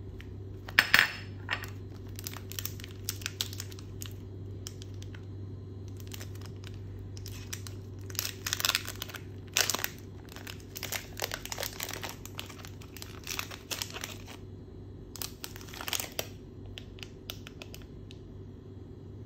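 Metallised chocolate-bar wrapper crinkling and crackling in irregular bursts as it is torn open and peeled back by hand, the sharpest crackle about a second in. A steady low hum runs underneath.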